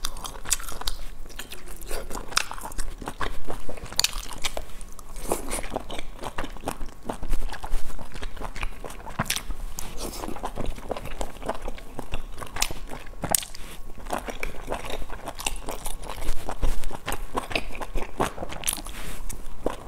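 Close-miked eating sounds of a person biting and chewing boiled dumplings: wet mouth noises with many short, sharp clicks.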